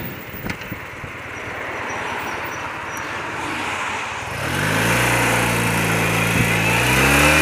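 Motorcycle engine on a 30-year-old BMW, quiet at first, then about four seconds in pulling hard under acceleration, with its note climbing near the end. Wind rush grows as it speeds up.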